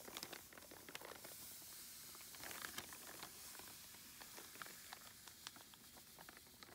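Fine sand pouring from a plastic bag into a plastic bucket: a faint, even hiss with small crinkles and ticks from the bag.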